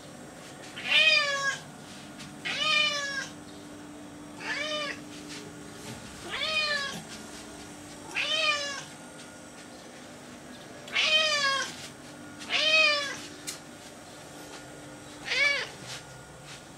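Short-haired domestic cat meowing repeatedly: eight meows about two seconds apart, each rising then falling in pitch.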